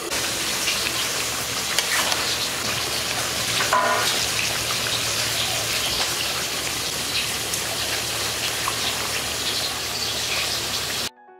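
Mutton pieces sizzling as they fry in a pan of cooked-down spiced masala, a steady hiss that cuts off abruptly near the end.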